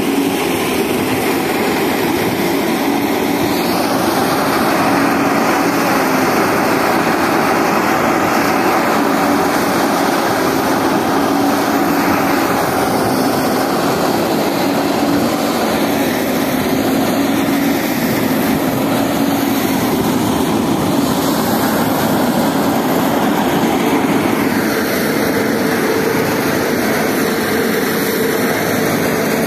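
Tractor-driven straw blower running steadily, its fan moving chopped straw through a wide corrugated pipe: a loud, continuous drone with a constant hum.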